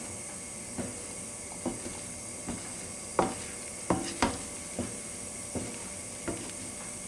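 Wooden spatula knocking and scraping against a frying pan, pushing in the edges of a setting omelette, about once a second, with the loudest knocks a little after the middle. A steady hiss runs underneath.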